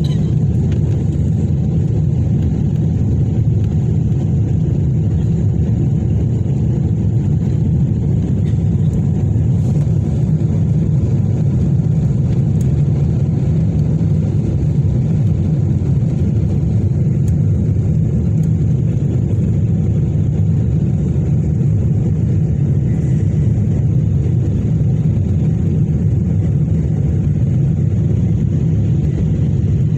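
Steady low rumble of an airliner cabin in the climb after takeoff: jet engines and rushing air heard through the fuselage.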